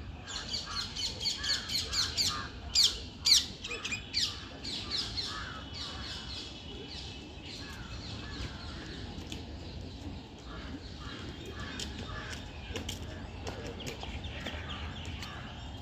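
A squirrel calling with rapid, repeated high chirps, about four or five a second. The calls are loudest in the first few seconds and then go on more faintly.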